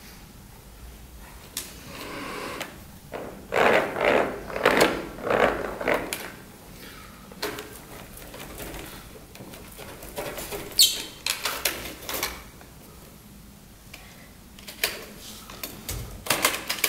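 Piano accordion played percussively: irregular clicks, knocks and short sharp bursts rather than held notes, coming in dense clusters with quieter gaps between.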